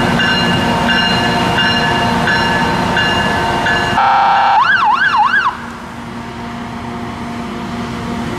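LORAM rail grinder's warning sirens: a pulsing warning tone repeats a little under twice a second. About four seconds in it switches to a steady tone, then to a fast up-and-down siren wail that stops about a second and a half later. The machine's engine keeps running underneath.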